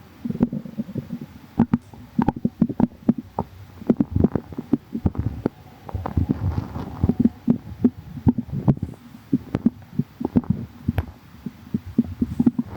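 A person's stomach growling: irregular gurgles and short pops, with a longer bubbling gurgle about halfway through.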